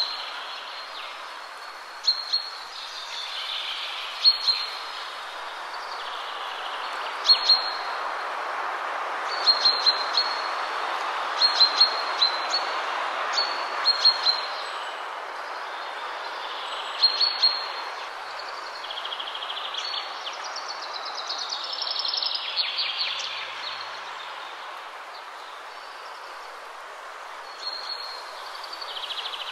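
Short, sharp bird chirps repeated every second or two, with a longer twittering run about two-thirds through, over a steady outdoor background hiss.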